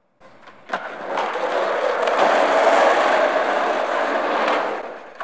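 Skateboard on a sloped concrete bank: a single sharp clack about three quarters of a second in, then a steady rough noise of the wheels and trucks that builds, runs loud for a few seconds and fades out just before the end.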